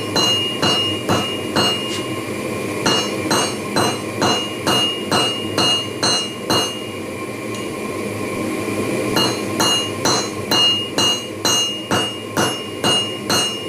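Hand hammer striking a red-hot steel bar on a railroad-track anvil, about three ringing blows a second in three runs with short pauses between them. The blows are knocking down the corners of a square bar to forge it into an octagon.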